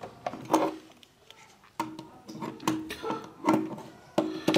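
A series of clinks and knocks as screws and small parts are handled against the metal cover of a gas conversion kit regulator. There are about eight sharp hits, several of them leaving a short ringing tone.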